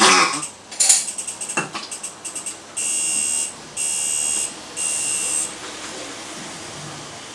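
Small dog with primary tracheal collapse in severe stridor: harsh, rattling, vibrating breaths over the first couple of seconds. Then three long electronic beeps, each under a second, in quick succession.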